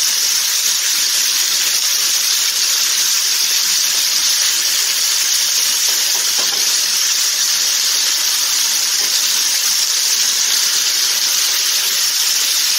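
Breakfast steaks searing in hot oil and butter in a skillet, a steady sizzle.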